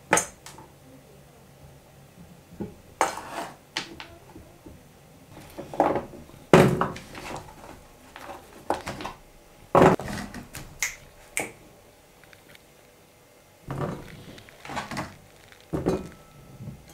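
Kitchen knife cutting small potatoes on a wooden cutting board: sharp, irregular knocks of the blade against the board, in small clusters with pauses between them.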